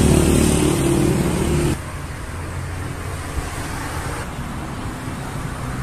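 A motor vehicle engine running close by, cutting off abruptly just under two seconds in, leaving steady street traffic noise.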